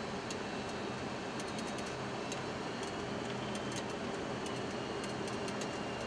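Steady rushing airflow and engine noise on the flight deck of a Boeing 737-200 on final approach, with gear down and flaps at 30. A faint high steady whine runs underneath, with scattered faint ticks.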